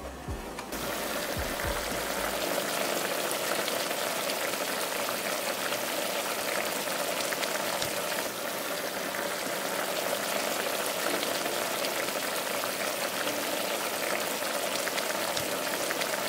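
Lamb cubes and potato chunks bubbling and sizzling in a shallow layer of water and oil in a pot, a steady crackling fizz that sets in about a second in.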